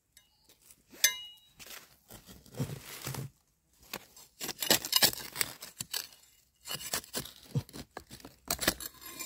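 A knife digging and scraping in stony soil and dry leaf litter to lift out a termite mushroom, in irregular scrapes, clicks and rustles, with a sharp click about a second in.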